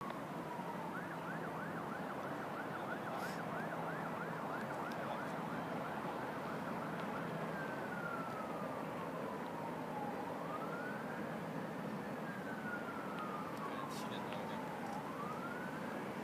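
Emergency vehicle siren sounding over a steady city hum. It first yelps, about three quick rises a second, then changes about halfway through to a slow wail that falls over a few seconds and climbs back more quickly.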